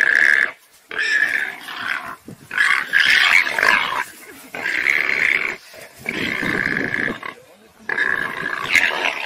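Warthog squealing in distress as a leopard holds it down: about six loud, long, high squeals in a row, with short gaps between them.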